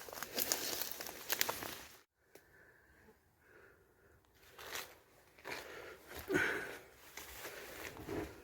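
Footsteps crunching and rustling over debris, cutting off abruptly about two seconds in; after that, quieter scattered rustles and crunches.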